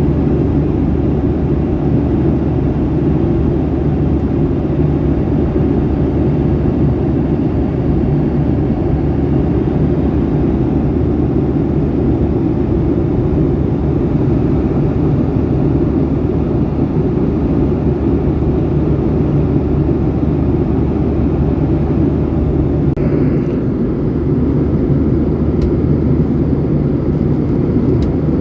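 Steady drone of a Boeing 737-800 airliner heard inside the passenger cabin: jet engines and airflow in an even, low rumble with a constant hum, unchanging throughout.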